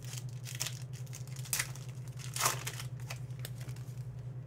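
Panini Contenders football cards being slid through a stack by hand: a few short papery swishes, the loudest about two and a half seconds in, over a steady low hum.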